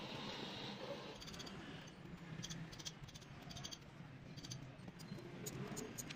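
Faint clicks and clinks of lead-acid battery plates being handled and stacked, with a scatter of short high-pitched squeaks, over a steady low background hum.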